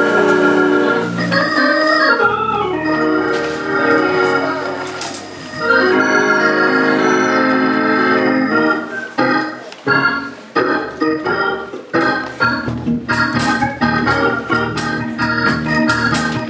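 Church organ playing long held chords, then going into a rhythmic gospel vamp of short chord stabs about halfway through, with drum and cymbal hits joining in.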